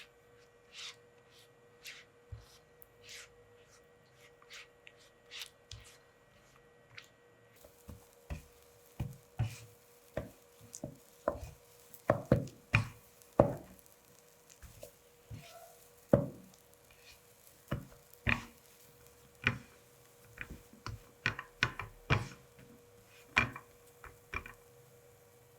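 Kitchen utensils knocking and tapping irregularly during food preparation, sparse at first and then busier and louder about a third of the way in, over a faint steady hum.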